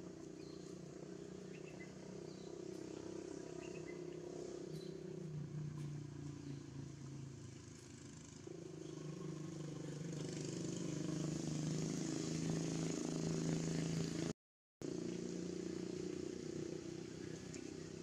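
A motor engine running steadily, its pitch shifting a few times. It grows louder about ten seconds in, and the sound cuts out briefly near the end.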